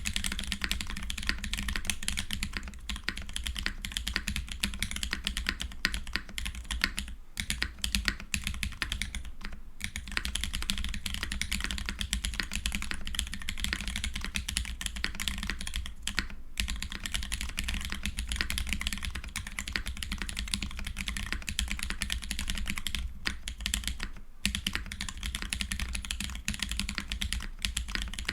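Continuous, fast typing on a Keycult No. 1/60 custom keyboard fitted with Holy Polar Panda tactile switches, with a few brief pauses.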